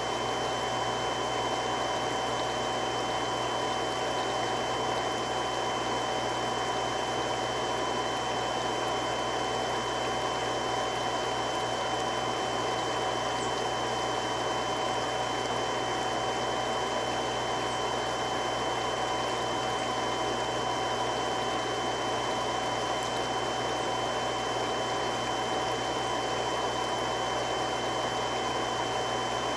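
Three-stage irrigation water pump running steadily: an even rushing hum with a few constant high tones over it.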